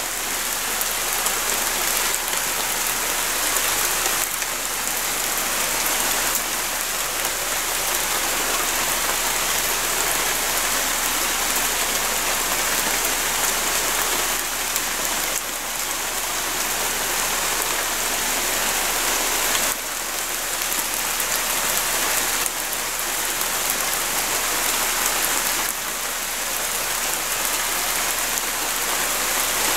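Steady rain falling, an even hiss of drops that hardly changes.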